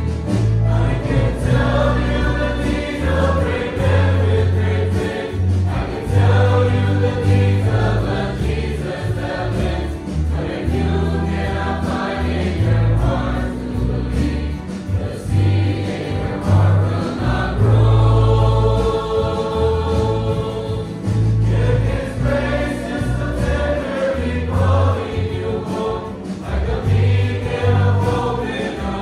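Large mixed choir of young men and women singing a hymn together in full voice, phrase after phrase with brief breaths between, over a deep bass accompaniment.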